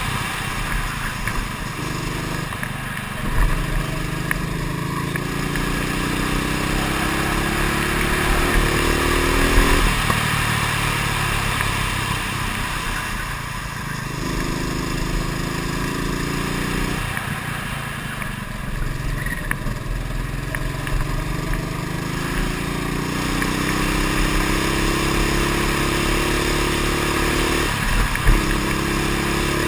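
Kart engine heard close up from a camera mounted on the kart, its pitch climbing steadily along the straights and dropping abruptly as the kart slows for corners, about four times, over wind and road noise.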